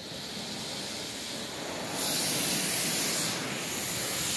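Automatic car wash spray jets hissing against the car's body and windows, heard from inside the cabin. The spray gets louder and brighter about two seconds in.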